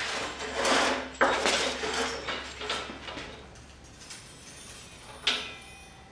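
Harbor Freight tubing roller being hand-cranked as a 1.5-inch chrome moly steel tube rolls through its steel rollers: metallic clanking and scraping, loudest in the first three seconds, then fading. A single sharp clank comes about five seconds in.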